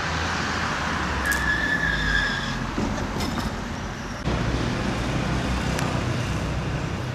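Steady road traffic noise, with a brief high squeal about a second in and a few sharp clicks.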